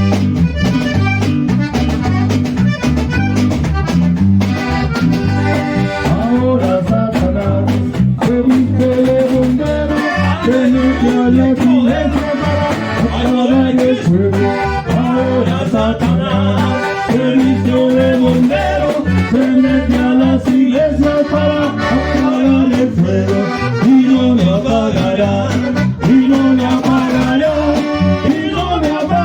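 Norteño band playing an instrumental passage, an accordion carrying the melody over a steady pulsing bass rhythm.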